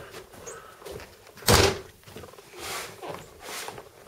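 A house door shut with a single loud thump about one and a half seconds in, followed by two softer swishes.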